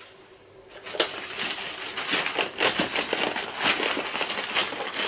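Plastic packaging crinkling and rustling as it is handled and squeezed, from a bag of fiberfill stuffing. It starts about a second in, after a brief quiet, with many rapid irregular crackles.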